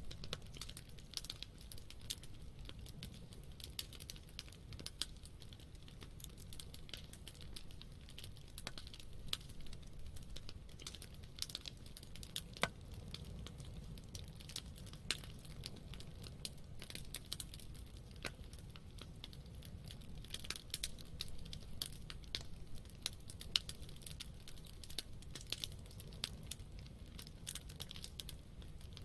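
Wood campfire crackling, with irregular snaps and pops, a few louder ones, over a low, steady rumble.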